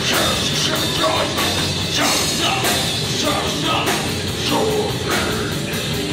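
Hardcore metal band playing live: loud distorted guitars, bass and drums, with the singer shouting over them.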